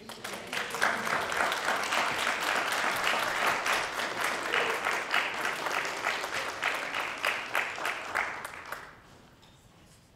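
Audience clapping: many hands applauding at once, starting abruptly and dying away about nine seconds in.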